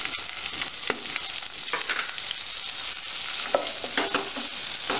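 Chopped onions and green chillies sizzling in hot oil and butter in a pan while being stirred, with a few sharp knocks of the spoon against the pan.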